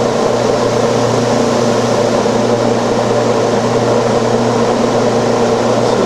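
Electric fan with a 14-inch blade running steadily at full speed: a loud, even rush of air over a steady low motor hum.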